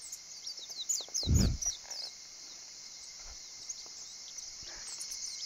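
Small birds chirping with many quick, falling notes over a steady high drone of insects. A brief low rumble comes a little over a second in.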